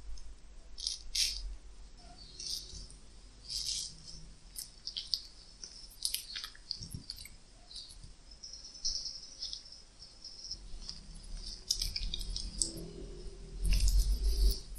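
A knife scoring the flesh of a ripe mango, then a metal spoon scooping the cubed mango off its skin into a ceramic bowl: irregular short scraping sounds, louder near the end.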